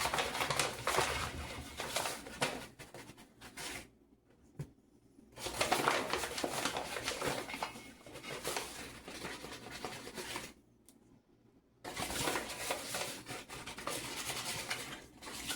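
Kitchen utensils scraping and rustling against a mixing bowl while flour is measured into cookie dough. The sound comes in three stretches, with two short silent breaks.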